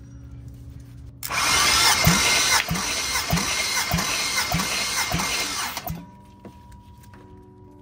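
Junkyard LS V8 cranked over by its starter for about five seconds during a compression test, without firing. It has a regular beat of about one stroke every 0.6 seconds, starts about a second in and stops suddenly about six seconds in.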